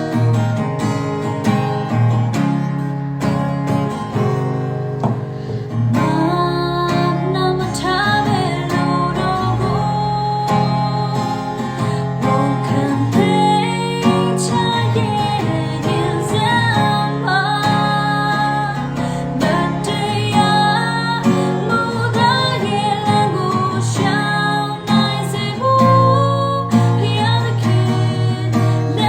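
Gospel song music: strummed acoustic guitar carrying the accompaniment, with a stepping melody line over it from a few seconds in.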